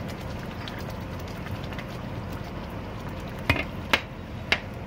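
A pan of coconut curry cooking with a steady low hiss, and three sharp knocks near the end as a black spatula strikes the non-stick pan while stirring.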